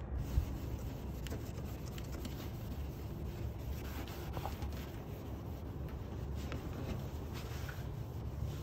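A lemon being rubbed back and forth over a plastic headlight lens, a steady scrubbing as the lens is cleaned of its haze.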